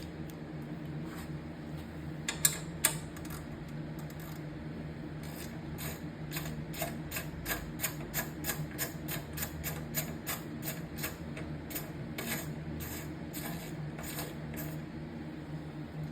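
Light metallic clicks from a 10 mm magnetic impact socket being worked on a bolt. They fall at about three a second through the middle stretch, with a couple of louder knocks before that, over a steady low hum.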